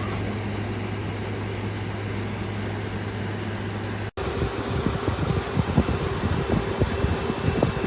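Frigidaire FFRA051WAE 5,000 BTU window air conditioner running with a steady low hum. About four seconds in the sound cuts and comes back louder, with a steady higher hum and irregular low buffeting like moving air hitting the microphone.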